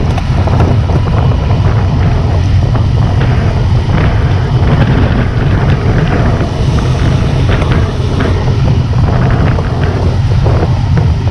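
Heavy, steady wind rumble on a handlebar-mounted camera's microphone at about 47 km/h, with the engine of a small motorbike just ahead running steadily under it.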